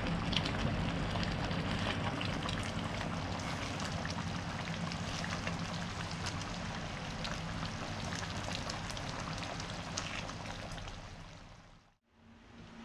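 Curry sauce simmering in a frying pan on a gas stove: a steady crackling hiss of small bubbles popping, with a spatula stirring through the thick sauce. The sound fades out about eleven seconds in.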